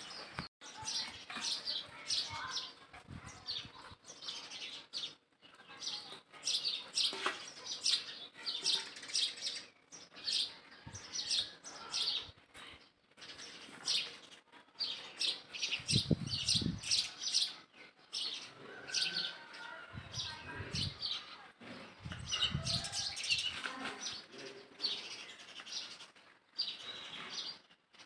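Rapid, repeated high-pitched chirping calls, with a few low thumps in the second half.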